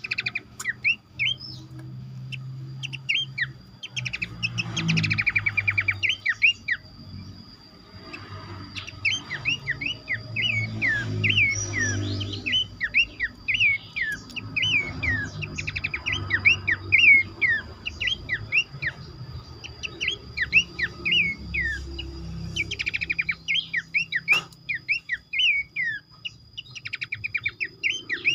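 A chorus of pelanduk semak babblers (Horsfield's babbler) calling: dense runs of rapid chirps and short sliding whistled notes, with a faint steady high tone underneath and a single sharp click about 24 seconds in.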